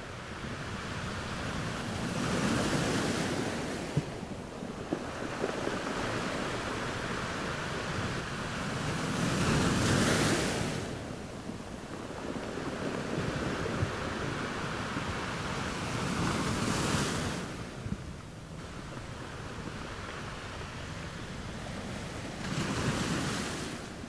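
Small waves breaking and washing up a sandy beach. The surf swells four times, about every six or seven seconds, with a steady wash of water between.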